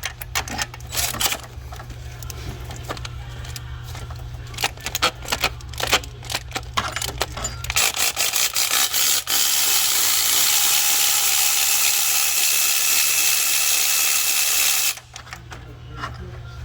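Clicking and rattling of hand tools during spark-plug work, then a steady loud hiss for about six seconds that cuts off suddenly.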